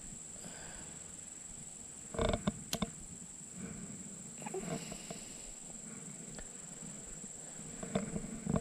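A steady high-pitched insect drone from the jungle, with knocks and rustles of hands handling a caught giant freshwater prawn and fishing tackle in a boat. The loudest handling comes about two seconds in and includes one sharp click. There is more rustling near the end.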